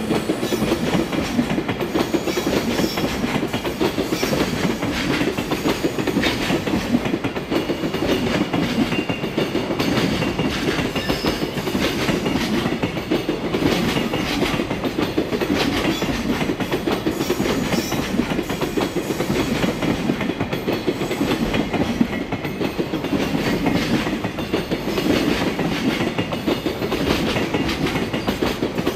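Freight train's container flat wagons rolling steadily past, wheels clattering over the rail joints in a continuous run of clicks.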